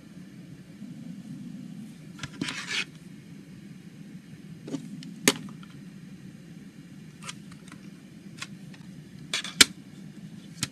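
Hands handling CD packaging: a brief rustle about two and a half seconds in, then scattered sharp plastic clicks and snaps, the loudest near the end, over a steady low hum.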